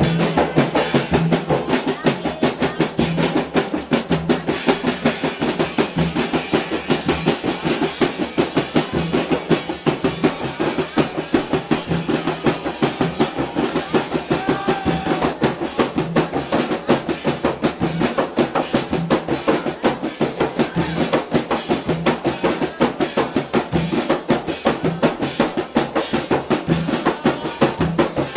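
A Mandar rebana ensemble of several large hand-struck frame drums, with a stick-beaten drum among them, playing a fast, dense, interlocking rhythm that keeps on without a break.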